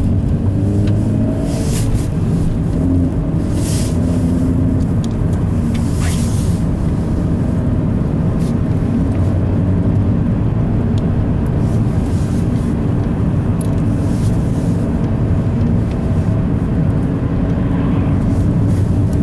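Car driving along a road, heard from inside the cabin: the engine hums steadily along with road and tyre noise. A few brief high clicks or rattles come in the first few seconds.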